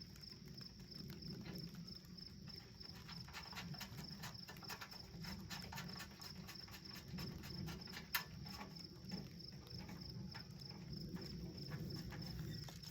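Light clicks and taps of metal woodstove parts being handled during assembly, with one sharper click about eight seconds in, over a steady high pulsing chirp.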